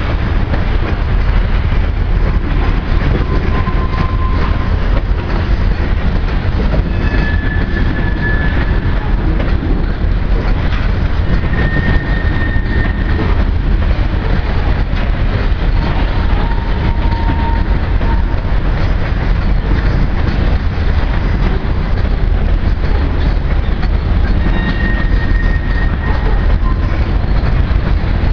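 Covered hopper cars of a heavy grain train rolling past: a steady loud rumble of wheels on rail with some clatter, broken about five times by brief high wheel squeals of a second or two each.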